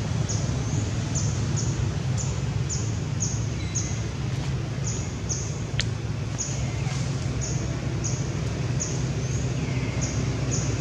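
Outdoor background: a steady low hum, with short high-pitched chirps repeating a few times a second throughout and a single sharp click a little past the middle.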